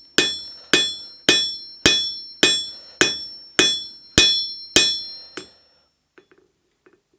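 Hand hammer forging a red-hot steel shaft end: about ten even blows, roughly two a second, each with a bright metallic ring, the last one lighter and a little past five seconds in.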